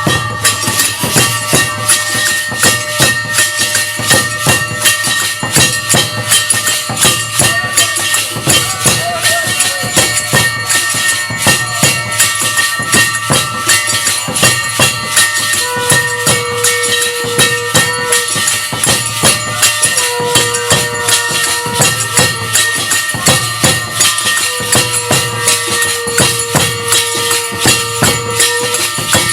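Hindu aarti music: a fast, even beat of jingling, clashing metal percussion and drum over steady ringing tones. In the second half a long held note sounds three times.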